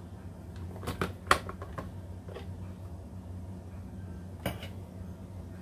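Hard plastic clicks and knocks from a Mueller vegetable chopper's lid and pusher grid being handled: a short cluster of clicks about a second in, the sharpest among them, then a single click and another knock near the end.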